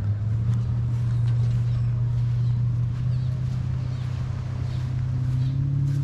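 An engine running with a steady low hum, its pitch rising a little about five seconds in.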